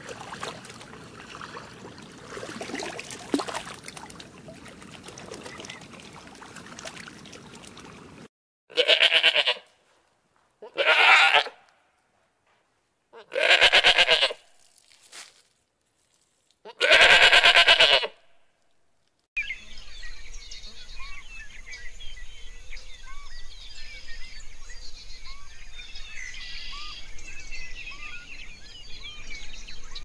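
Four loud, drawn-out bleats, each about a second long and a couple of seconds apart, from a bleating farm animal. They are preceded by a stretch of low noise, and after them comes a bed of many short chirping calls.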